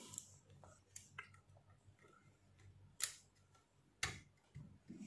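Quiet handling noise: a few sharp clicks and taps as the fuse, the multimeter test probes and the opened car stereo's metal chassis are picked up and moved, with two louder clicks about three and four seconds in.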